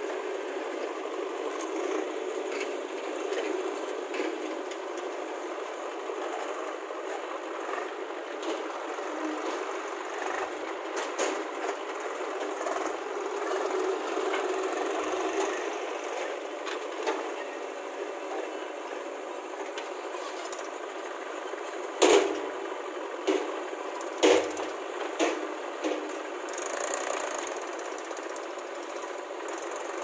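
Engines of a JCB 3DX backhoe loader and a Mahindra tractor running steadily while the backhoe loads earth into the tractor trolley. Four sharp knocks come in quick succession about three quarters of the way through.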